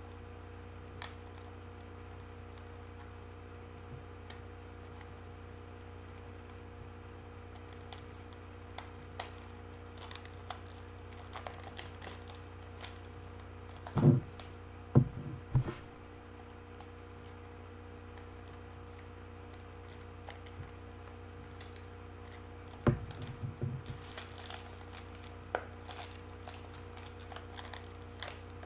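Wrapping paper being peeled and crinkled slowly off a wrapped present, with scattered small clicks and taps and a few louder handling knocks about halfway through and again later. A steady low hum runs underneath.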